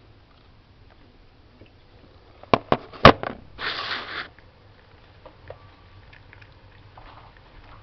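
Camera set down on a kitchen counter: a few sharp knocks about two and a half to three seconds in, the loudest a hard clack, followed by a short rustle. After that, a cat lapping milk from a plate, faintly.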